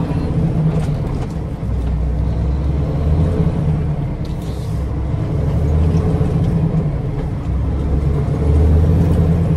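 Steady low engine and road drone heard from inside a moving vehicle's cabin, swelling and easing slightly.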